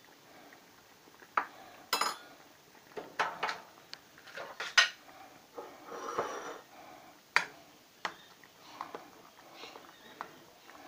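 A spoon stirring stew in a stainless steel pot, knocking and scraping against the pot in irregular clinks, the loudest about five seconds in.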